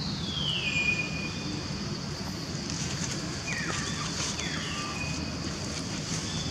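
Forest ambience: a steady high-pitched drone over a low rumble, with descending whistled animal calls, one at the start and several about halfway through.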